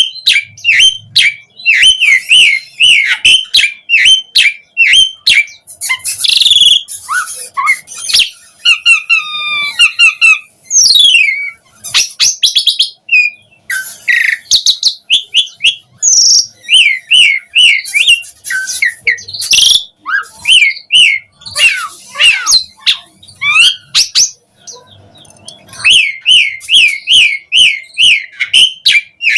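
Asian pied starling singing a loud, varied song: runs of quick repeated chirps alternate with gliding whistles and harsher rasping notes, broken by a couple of short pauses.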